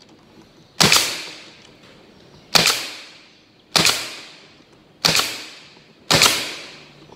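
Bostitch 7/32-inch narrow crown pneumatic stapler firing five times, about one shot every second or so, driving 1¼-inch staples into the top bars of wooden beehive frames. Each shot is a sharp snap that trails off over about half a second.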